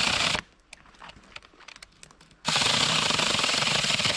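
Battery-powered AOSTOK 6-inch mini chainsaw cutting into a soaking-wet branch. One run cuts off about half a second in; after a pause with a few faint clicks, the saw starts again about two and a half seconds in and keeps running.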